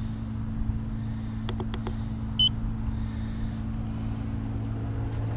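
Steady low hum of an idling engine, with two short high beeps about two and a half seconds apart and a few light clicks.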